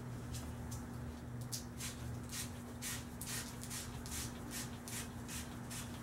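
Sandpaper rubbed back and forth by hand along a steel air-rifle barrel, about two rasping strokes a second, taking off rust and smoothing the metal. A steady low hum runs underneath.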